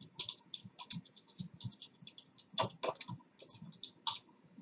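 Typing on a computer keyboard as a password is entered: an irregular run of quick, light key clicks.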